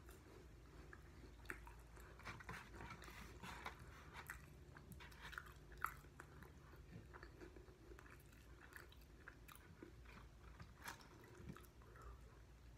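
Faint chewing of chicken wings, with scattered small clicks and mouth sounds.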